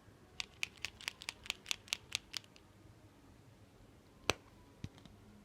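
Ohuhu markers being handled: a quick run of about ten light, sharp plastic clicks, then one louder click a couple of seconds later and a fainter one after it.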